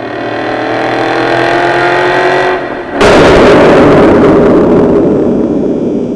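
Ford Mustang GT's 5-litre V8 through a Borla ATAK exhaust: the engine pulls up through the revs with a slowly rising pitch. After a cut about three seconds in, a louder, noisier exhaust note holds steady and eases off slightly.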